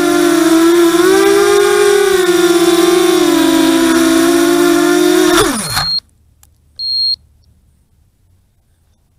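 FPV250 quadcopter's motors and propellers whining at a steady, slightly wavering pitch, then spooling down with a falling pitch and stopping about six seconds in as the quad comes to rest in the grass. Two short high beeps follow about a second apart, the second louder.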